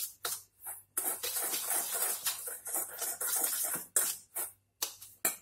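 Wire whisk stirring dry semolina, flour and powdered sugar in a stainless steel bowl: a run of scratchy, rasping strokes, then a few separate strokes near the end.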